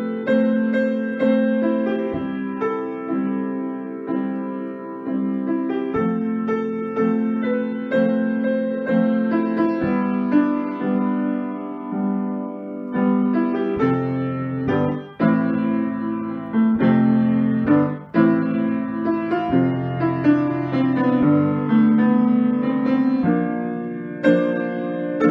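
Grand piano played solo: a pop ballad with sustained chords under a melody, the sound dipping briefly twice past the middle.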